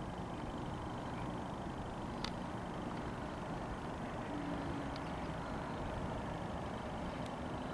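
Steady low outdoor rumble of distant traffic, with a few soft clicks.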